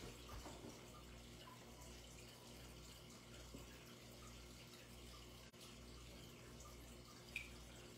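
Near silence: room tone with a faint steady low hum and a faint click near the end.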